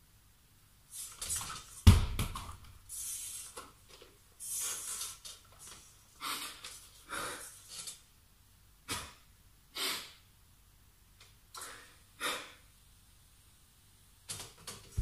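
A man breathing hard in short, ragged breaths, about one a second. There is a single thump about two seconds in.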